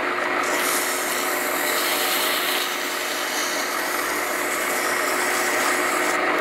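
A small metal lathe runs with a steady hum while sandpaper is held against the spinning brass hammer head, giving a steady rubbing hiss that starts about half a second in.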